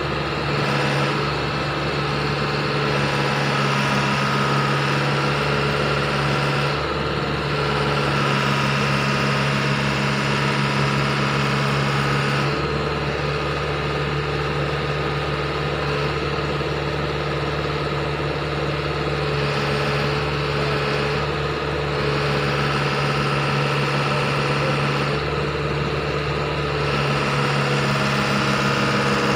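Excavator's diesel engine idling steadily, with small shifts in its tone every few seconds.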